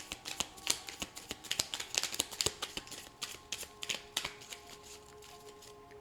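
Tarot cards being shuffled by hand: a quick run of crisp clicks and slaps that thins out about four seconds in. Faint background music with held notes runs underneath.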